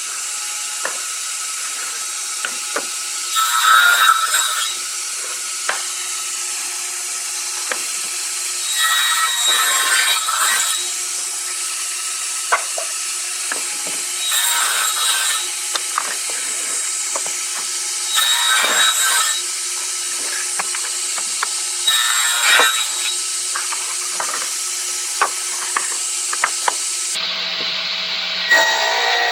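Woodworking power saw running in the shop, cutting red oak boards in repeated passes about every four to five seconds, with knocks and clicks of wood being handled between cuts.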